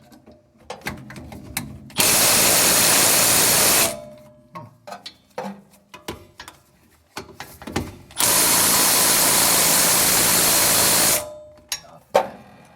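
3/8-inch Milwaukee impact wrench hammering on a seized 12 mm rear hub bolt that has just started to move, in two runs of about two and three seconds. Short clicks and knocks come between the runs.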